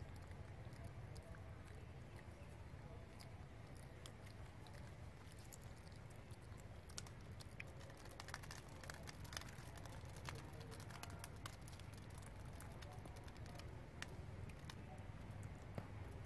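Quiet outdoor ambience with a low steady rumble and scattered light clicks and crackles, more of them in the second half.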